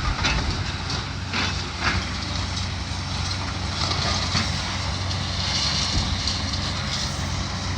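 Heavy diesel demolition machinery running with a steady low engine drone, with a few sharp knocks and crunches in the first two seconds.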